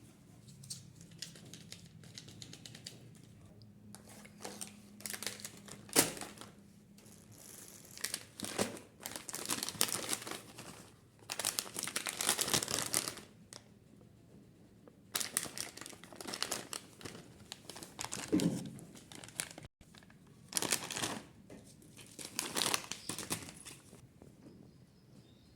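Kinder Joy egg's plastic wrapper being crinkled and torn open by hand, in repeated bursts with short pauses, with one sharp snap about six seconds in.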